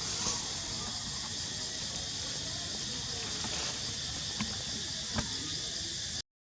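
Steady high-pitched hiss of outdoor background noise with a couple of faint clicks; the sound cuts out briefly near the end.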